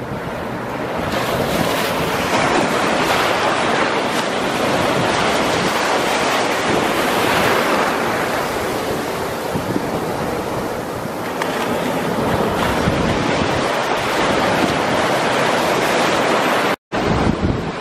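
Sea surf washing and breaking right around a microphone held just above the water, a continuous rush that swells and eases with the waves; the sound cuts out for a moment near the end.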